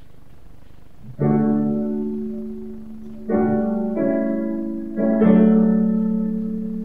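Piano starting offertory music: after about a second of room tone, slow chords are struck about a second in and again around three, four and five seconds in, each ringing on and fading away.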